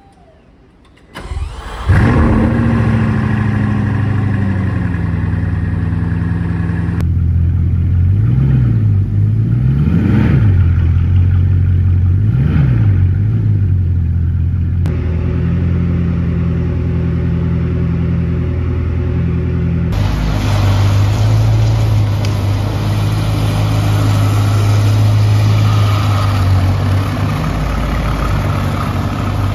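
Bugatti Divo's 8.0-litre quad-turbocharged W16 engine starting up about a second in, its high idle settling lower. It then gives three quick throttle blips that rise and fall in pitch before idling steadily. In the last third a Bugatti Chiron's W16 idles steadily.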